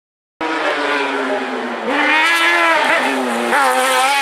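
Race car engine at high revs climbing a hill, its pitch rising and falling several times as it is driven hard through the gears and corners. It begins after a brief dead gap of silence.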